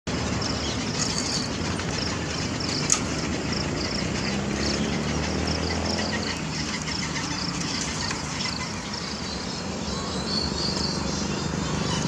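Outdoor ambience: a steady low hum with short high chirps repeating a few times a second over it, and a single sharp click about three seconds in.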